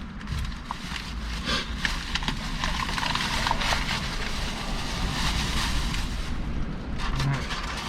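Wind, a steady low rumble, with scattered small clicks and crinkles on top.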